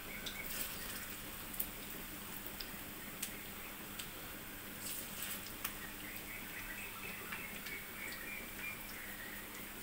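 Masoor dal pakoras deep-frying in hot oil in a kadai: a steady sizzle with scattered sharp pops and crackles, the sharpest about a second and a half in.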